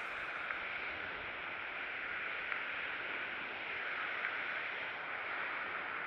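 Steady even hiss with no speech or music, and a few faint ticks.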